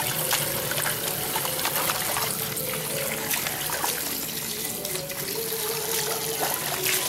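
Water from an outdoor tap running steadily into a basin of water, with many small splashes as a dog drinks from the stream and paws at the water in the basin.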